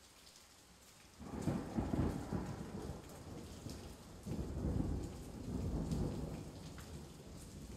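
Rolling thunder over steady rain. A deep rumble comes in about a second in, swells twice and slowly dies away.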